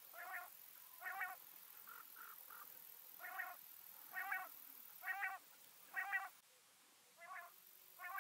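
Common quail calling: short, faint calls repeated roughly once a second, about seven in all, with a few softer notes around two seconds in.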